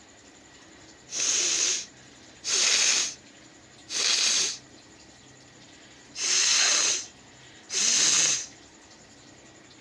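A woman blowing her nose hard five times, in short airy blasts of about half a second to a second each. Her nose is running from a head cold.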